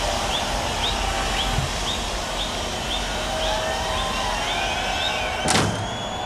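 Outdoor background noise with a small bird chirping a short rising note over and over, about two or three times a second. About five and a half seconds in, a sudden whoosh sweeps down in pitch.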